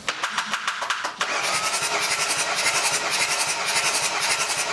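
Nissan V9X 3.0-litre V6 turbodiesel being cranked by its starter during a compression test on cylinder 1, the engine not firing. It turns over in rapid, even pulses that settle into a steady rhythm about a second in.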